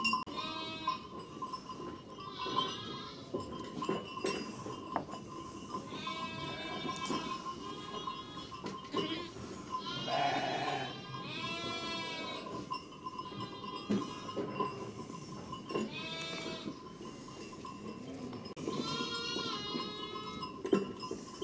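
A flock of sheep bleating, about eight calls spread out, some overlapping. A faint steady high tone lies beneath them.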